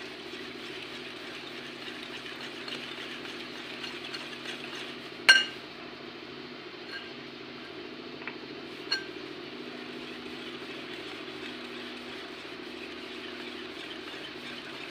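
Wire whisk clinking against a glass bowl while mixing besan batter: one sharp ringing clink about five seconds in and a softer one near nine seconds, with a few faint ticks between. A steady low hum runs underneath.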